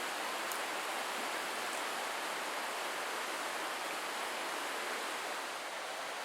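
Steady rush of a stream's flowing water, an even noise with no breaks.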